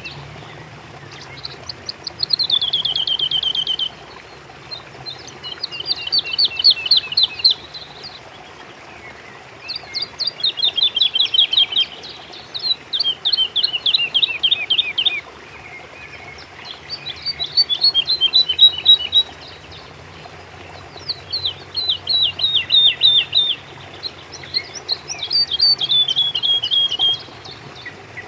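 A songbird singing the same rapid trill over and over, each phrase a quick run of short falling notes lasting about two seconds, about seven phrases with short pauses between.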